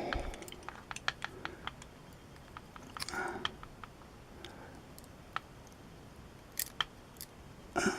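Light, scattered clicks and scrapes of small metal tools and lock parts being handled while a pin-tumbler lock is disassembled and its pins and springs are worked out of the bible.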